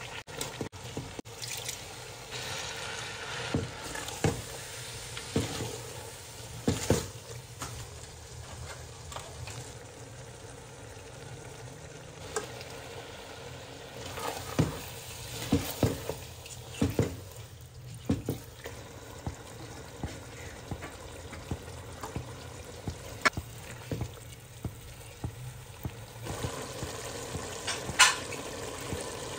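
Chicken sizzling and frying in hot oil in a metal cooking pot, with a spatula stirring and scraping, and sharp knocks against the pot at irregular moments.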